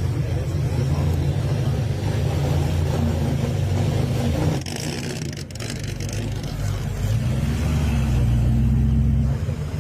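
Car engine running steadily, dropping briefly about halfway through and then picking up again.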